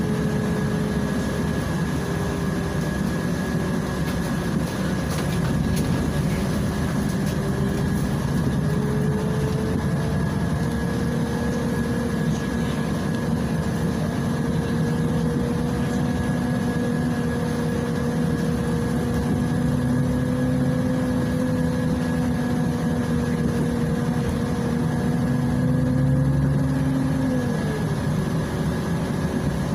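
Inside a Volgabus 5270G2 city bus under way: its compressed-natural-gas Yuchai engine and drivetrain run with a low rumble and a whine that climbs slowly in pitch as the bus gathers speed. The whine drops sharply near the end.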